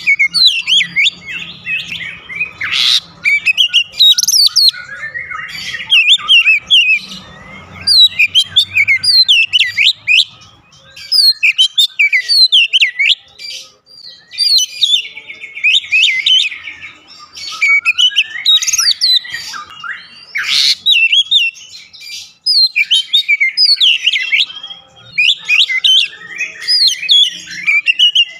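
Oriental magpie-robin (kacer) singing: rapid, varied phrases of gliding whistles and chirps, each a second or two long, with short breaks between them.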